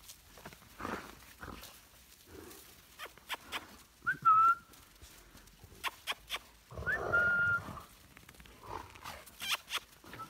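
A person whistles two short notes, each sliding up quickly into a steady held pitch, about four and seven seconds in, among the scuffles and clicks of puppies at play.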